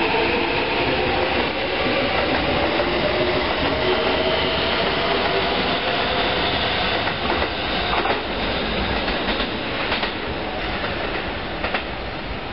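Red Keikyu electric train running close by over station pointwork. Its motor whine rises slowly in pitch through the first few seconds as it gathers speed, over a steady rumble of wheels on rail. Later come a few sharp clacks as the wheels cross the points and rail joints.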